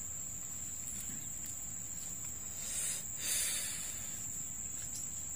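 Insects droning on one steady high-pitched tone, with a brief soft hiss about three seconds in.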